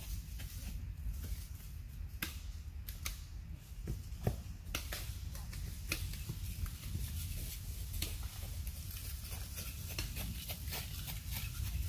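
Irregular crackles and sharp snaps of dry leaf litter underfoot as people move through the woods, over a steady low rumble.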